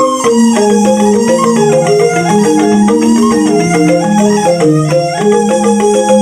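Balinese rindik, a bamboo xylophone, playing fast interlocking mallet patterns of short ringing notes beneath a slower melody line.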